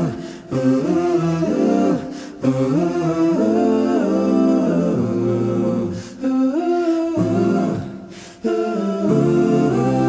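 Vocal music in an a cappella style: sung or hummed long held notes in phrases, broken by brief pauses.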